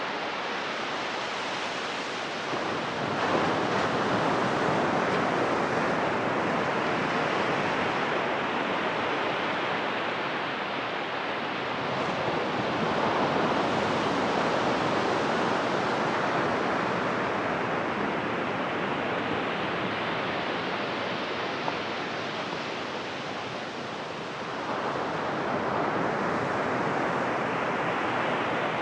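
Ocean surf breaking and washing up a sandy beach. It is a steady rush that swells with each breaking wave, three times, a few seconds in, around the middle and near the end.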